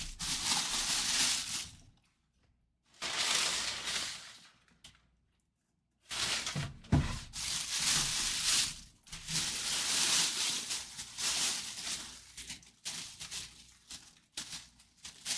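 Clear plastic bag crinkling and rustling in bursts as a full-size football helmet is handled and worked out of it, with two short quiet gaps. A single knock about seven seconds in.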